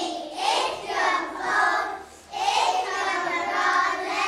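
A group of young children singing together, in phrases with a short break about two seconds in.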